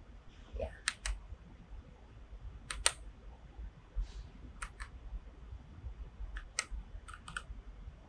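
Scattered key clicks from a Keychron K6 mechanical keyboard, several coming in quick pairs, as keys are pressed to change and then switch off the backlight.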